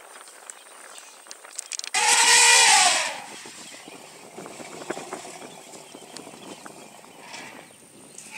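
African elephant trumpeting once, about two seconds in: a loud call about a second long whose pitch rises and then falls. Faint rustling and outdoor background fill the rest.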